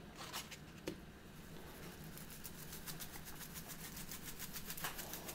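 Seasoning shaker being shaken over ground sausage, faint. There are a couple of light knocks first, then from about two seconds in a quick, even ticking of the salt-pepper-garlic rub rattling out.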